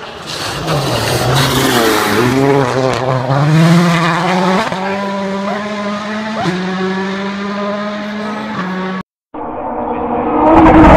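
Rally car engine revving hard, climbing in pitch for several seconds and then held high and steady at full throttle. The sound cuts out briefly about nine seconds in and a loud engine starts up again.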